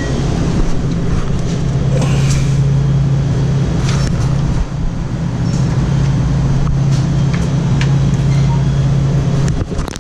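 Car interior noise while driving: steady road and engine rumble with a constant low drone, which cuts off near the end.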